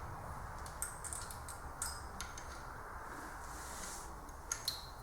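Light metallic clinks of a timing chain and small engine parts being handled on the bench: a handful of sharp ticks at irregular moments, the loudest near the start and twice near the end, over a faint steady hum.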